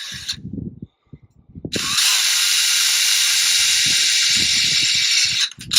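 Small power drill running in bursts while carefully enlarging small holes so that thicker wires will fit: it stops just after the start, runs steadily from about two seconds in until near the end, then gives one short burst, with low knocks from handling underneath.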